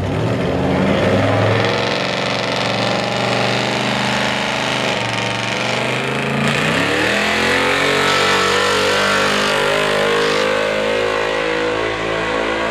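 Early-1970s Chevrolet pickup's gas engine running hard under load as it drags a weighted pulling sled, the engine note sagging about halfway through and then climbing again.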